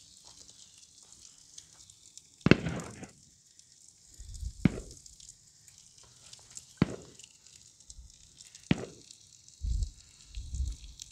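Burger patties sizzling on a grill pan over a wood fire, with a steady high hiss and four sharp pops from the fire about two seconds apart.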